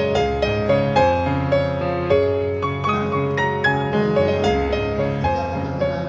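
Instrumental piano music, a melody of struck notes over held chords.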